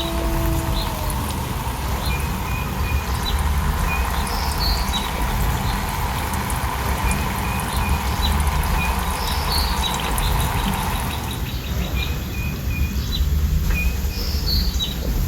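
Songbirds chirping in short repeated calls over a steady rush of falling water. The end of a long wolf howl fades out about a second in.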